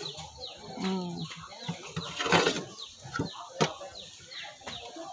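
Chickens calling in a quick series of short, high calls that fall in pitch, about three a second. A brief rustle about two seconds in and a sharp knock a second later come from the raw chicken being handled.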